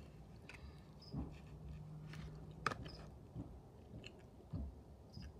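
Close-up chewing of a mouthful of soft scrambled eggs, with scattered wet mouth clicks; one sharp click about two and a half seconds in is the loudest. A low steady hum runs under the first half and then stops.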